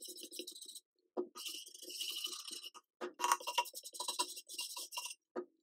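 Plastic bristle brush scrubbing paint-stripper-softened shellac off the bare wood of a toolbox in quick, scratchy strokes, pausing briefly a few times.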